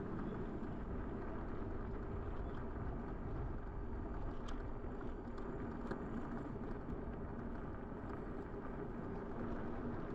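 Steady riding noise from a bicycle on the road: low wind rumble on the microphone and tyre noise, with a faint steady hum underneath.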